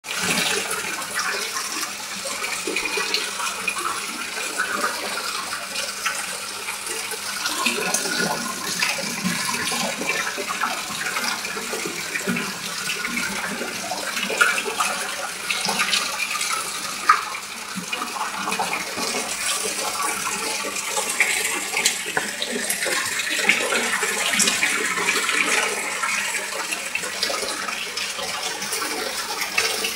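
Water splashing and churning steadily at the surface of a pond packed with fish, with many small splashes.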